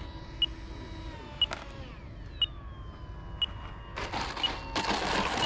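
Stinger 90 Extreme's 90 mm electric ducted fan whining and falling in pitch as the jet rolls out after landing, with a short high beep about once a second. A louder rushing noise comes in near the end.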